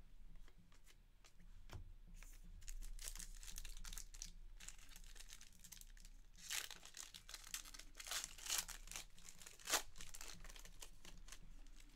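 A trading-card pack's foil wrapper being torn open and crinkled by hand: soft crackling, with several louder rips in the second half.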